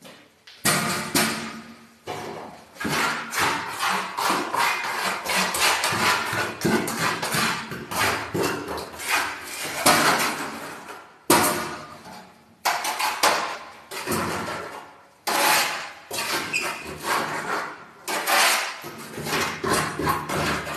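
A trowel scraping and knocking against the inside of a bucket of fine plaster in rough, repeated strokes, with short pauses between runs of strokes.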